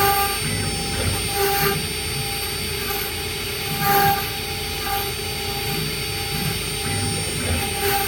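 Stone CNC router at work on stone: a steady high whine and grinding noise, with lower tones that swell and fade every second or two as the machine moves, loudest about four seconds in.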